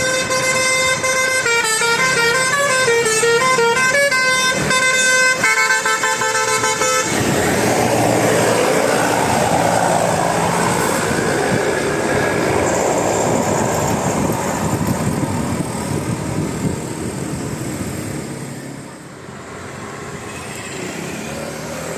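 Basuri bus's telolet horn, a multi-tone musical air horn, plays a quick stepping tune for about seven seconds. Then comes the loud, even noise of the bus driving past, which eases off near the end.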